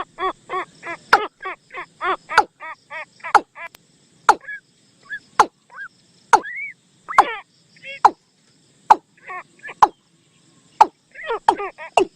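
Bird-lure recording of the nok tum's call: runs of short, arched notes about four a second, thinning out mid-way with one rising note, then resuming. Sharp clicks recur roughly once a second.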